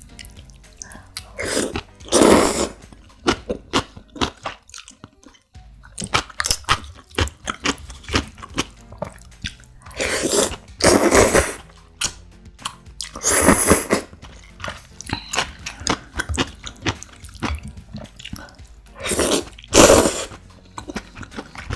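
Close-up slurping of creamy instant noodles, several long slurps, with wet chewing and lip smacks between them.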